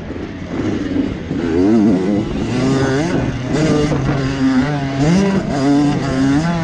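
Motocross bike's engine under racing throttle, its pitch climbing and dropping back several times as it revs up and eases off.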